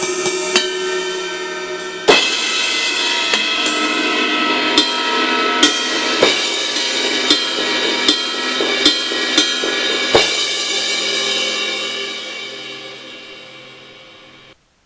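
Sampled acoustic drum kit played through a 2Box electronic drum module with BFD2 kit sounds: a loud cymbal crash about two seconds in, then a string of single cymbal and drum hits every half second to a second. The cymbals ring out and fade away near the end.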